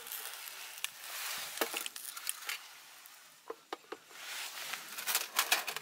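Soft hiss as a long gas lighter lights a solid-fuel tablet, followed by scattered light metallic clicks and knocks as a mess tin is set down on the stove's mesh grate. Another stretch of hiss comes near the end.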